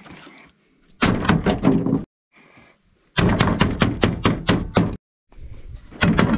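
Rapid repeated thuds of a hard blunt tool smashing a zip-top bag of Doritos on a wooden cutting board, crushing the chips into crumbs. The blows come in three runs of about five a second, with short breaks between.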